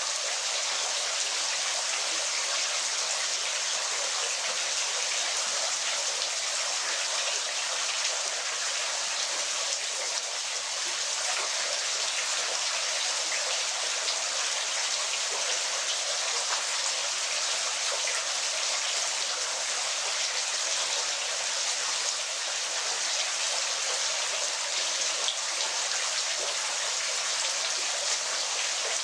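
Waterfall: a steady, unbroken hiss of falling and splashing water, with little deep rumble.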